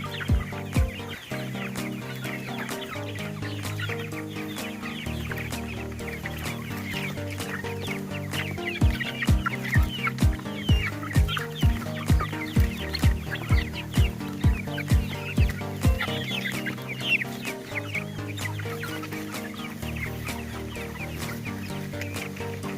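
A flock of free-range chickens clucking, over background music. A steady drum beat of about two thumps a second sounds near the start and again through the middle.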